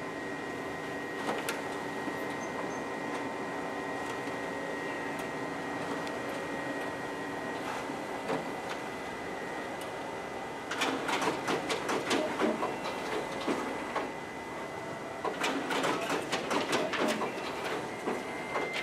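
Ricoh MP C2500 colour copier running a two-copy job: a steady hum with a constant high whine. About eleven seconds in, dense clicking and rattling starts, breaks off briefly, and returns from about fifteen seconds.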